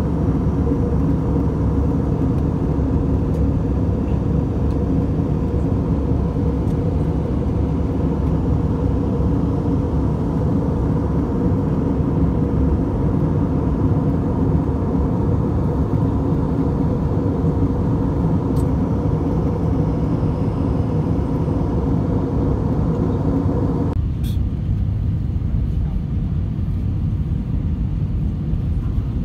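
Airliner cabin noise in flight: a steady rush of jet engine and airflow noise with a few steady hum tones. About 24 seconds in it changes abruptly to a duller, thinner cabin noise.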